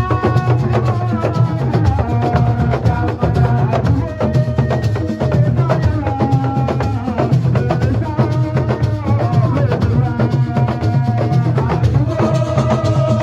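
Music: dense, rapid drumming under a singing voice, with held notes that bend in pitch.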